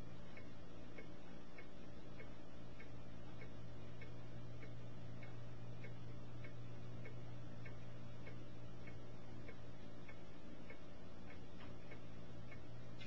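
A steady low hum with faint, evenly spaced ticks running through it.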